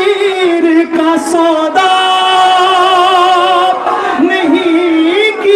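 Man singing a line of an Urdu devotional poem (kalam) into a microphone, drawn out in long, wavering held notes.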